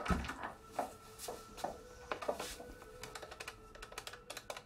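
A swinging office door thuds shut at the start, followed by a run of light, irregular clicks and taps that end in a quick series of presses on a desk telephone's keypad.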